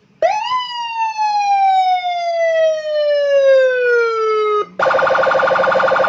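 Custom Senken-style police escort (patwal) electronic siren. It sounds one long tone that jumps up and then slides slowly down in pitch over about four seconds before cutting off. Then it switches to a rapid pulsing warble near the end: the characteristic Senken tone pattern.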